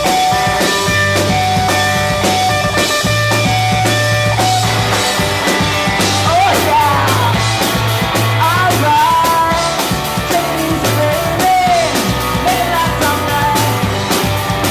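Rock band playing: electric guitar over a low bass line and drums, with a woman's singing voice coming in about six seconds in.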